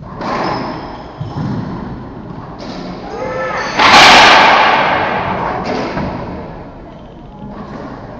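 Racquetball rally: the ball cracking off racquets and walls, with sneakers squeaking on the hardwood floor. A loud bang about four seconds in rings on for a couple of seconds in the enclosed court.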